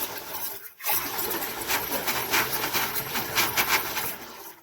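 SodaStream Terra sparkling water maker carbonating, CO2 rushing into the bottle with a loud buzzing hiss: a short burst, then a longer one of about three and a half seconds that cuts off sharply.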